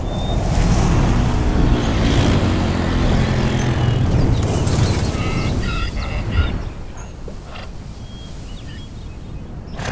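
A motor running with a low droning hum that fades out about seven seconds in. Short honking calls come around five to six seconds in.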